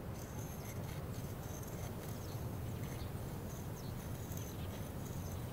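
Faint background ambience of insects chirping: short, high-pitched chirps repeating about twice a second over a low, steady hum.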